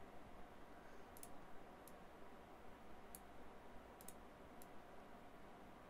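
Faint, scattered clicks of a computer mouse, about seven spread over several seconds, over near-silent room tone.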